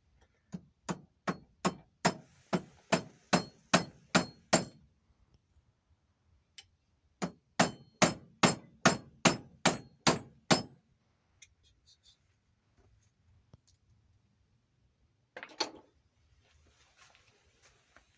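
Hammer striking metal in two runs of even blows, about two to three a second, with a slight metallic ring. The first run has about a dozen blows and the second about eight. One short clatter follows near the end.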